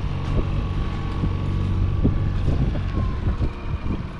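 Wind buffeting the microphone over the steady drone of a boat motor running while trolling, with a few light knocks.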